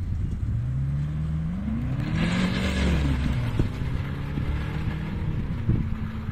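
A car's engine rising in pitch as it accelerates, loudest about two to three seconds in as it passes, then falling away. A steady low engine drone runs underneath.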